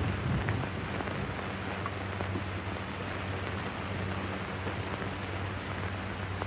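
Steady hiss with a low hum from an early sound film's worn soundtrack, with a few faint ticks.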